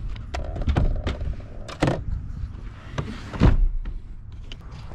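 Rear seat of a Ram 3500 Mega Cab being folded down by hand: a few clicks and knocks as it is worked, then a heavy thud about three and a half seconds in as the seatback drops flat.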